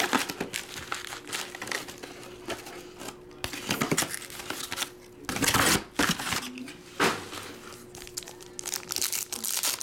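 Foil trading-card pack wrappers (2022 Donruss Optic UFC) crinkling in the hands and being torn open, in irregular bursts with the loudest about five to six seconds in.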